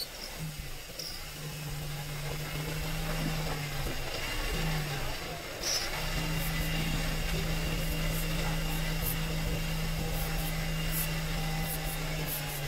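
A steady low machine hum, like a running motor. It cuts out briefly about four seconds in and again about five seconds in, then runs on steadily. Faint light ticks and clicks sound over it.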